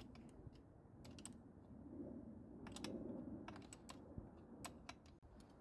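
Near silence: faint room tone with a scattering of light clicks and ticks.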